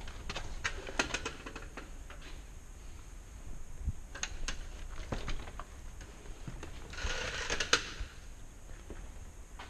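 Footsteps scuffing and crunching on a gritty, debris-strewn concrete floor: scattered light clicks and taps, with a longer scrape about seven seconds in.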